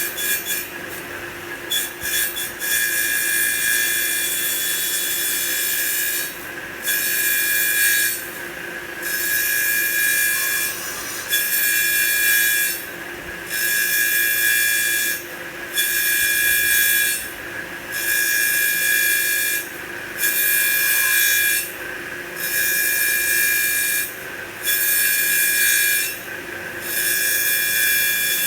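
CNC wood lathe cutting a spinning wooden blank into turned beads. The tool bites in repeated passes about every two seconds, each a loud rasping cut with a short lull between, over a steady high machine whine.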